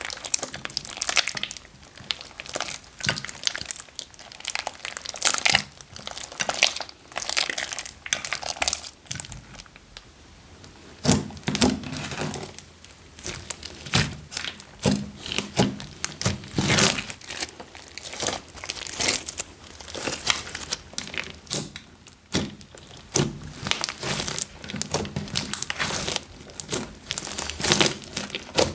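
Plastic bags of slime crinkling and rustling as they are squeezed and kneaded by hand, in irregular crackly bursts with a brief quieter lull a little over a third of the way in.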